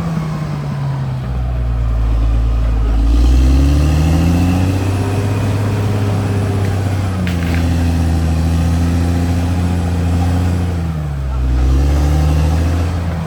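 Caterpillar D6R XL bulldozer's diesel engine running under work, its pitch rising and falling several times as the revs change. A brief click about seven seconds in.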